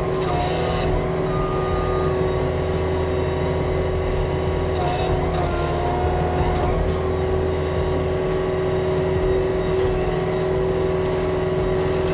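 Cat SG18B high-flow stump grinder on a skid steer, its cutting wheel grinding into a stump with the loader's engine run up to full throttle. A loud, steady machine drone, with a few short higher tones coming and going.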